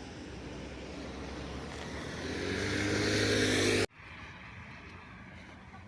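A vehicle engine growing louder as it draws near, with a steady hum over a rising rush, cut off abruptly just before four seconds in.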